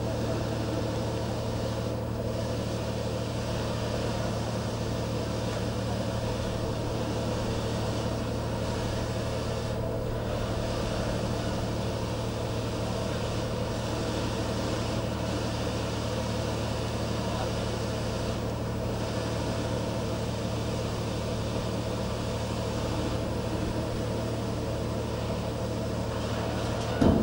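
Ship's engine and machinery drone: a steady low hum that stays unchanged throughout. A brief thump comes at the very end.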